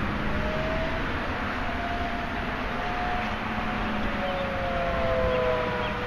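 Outdoor tornado warning sirens wailing, sounding a tornado warning: a steady tone that slowly falls in pitch, with a second siren's tone joining about four seconds in.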